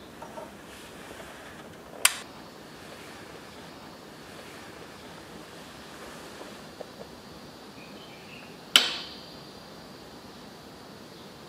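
Two sharp knocks from handling an electronic keyboard on its metal stand, about seven seconds apart; the second rings briefly with a high metallic tone. Between them, a few faint ticks over a steady hiss of room noise.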